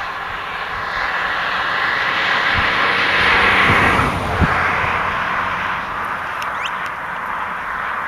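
An aircraft passing over: a rushing engine noise that swells to its loudest about halfway through, then eases off.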